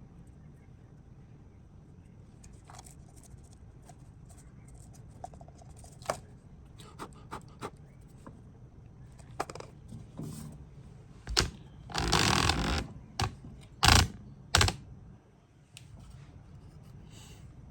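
Scattered clicks and knocks of things being handled on a work surface. About twelve seconds in there is a louder scraping rustle lasting under a second, with sharper knocks just before and twice after it.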